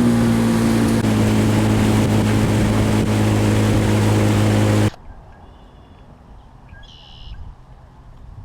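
Boat motor running at steady speed with heavy wind and water rush; it cuts off abruptly about five seconds in. After that there is quiet lake ambience with a brief high chirp.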